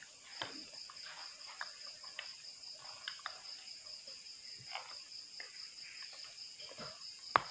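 Night insects, crickets, trilling steadily in a high, fast-pulsing chorus. Over them come soft chewing, lip smacks and small spoon clicks of someone eating. One sharp click near the end is the loudest sound.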